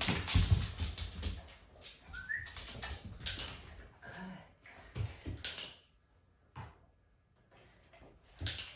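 A dog sniffing and moving about after tossed treats, with short noisy sniffing bursts, several of them loud, among scattered small clicks and rustles.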